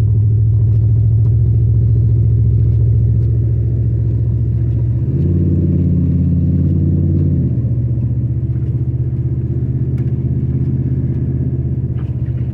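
Vehicle engine running steadily under way in four-wheel drive, a low drone whose pitch shifts for a couple of seconds in the middle before settling back.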